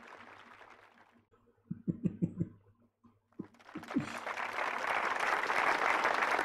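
A crowd's applause dying away, a couple of seconds of near quiet broken by a few short low knocks, then a large crowd's applause swelling up again about four seconds in.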